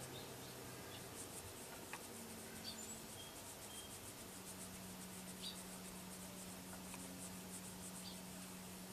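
Faint scratchy rubbing of fingers stroking a sleeping cat's fur, over a steady low hiss, with a few faint short ticks.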